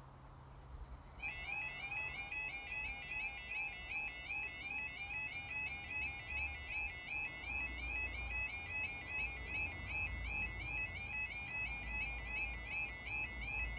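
Two Yodalarm electronic level crossing alarms switch on about a second in and sound together, a high warbling yodel repeating several times a second.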